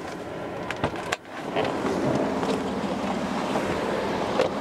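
A few sharp clicks in the first second, then steady wind buffeting the camera microphone from about a second and a half in.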